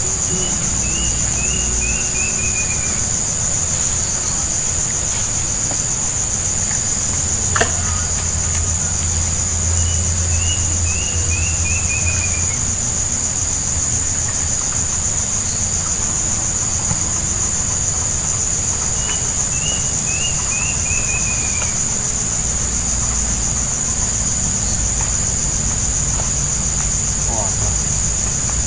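Steady high-pitched drone of insects, over a low rumble. A quick falling run of short notes sounds three times, about nine seconds apart, and there is a single sharp click about seven and a half seconds in.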